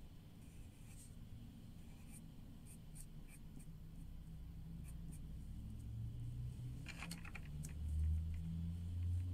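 Pencil scratching faintly on paper in short strokes, then a quick run of clicks about seven seconds in and a low rumbling knock of handling near the end.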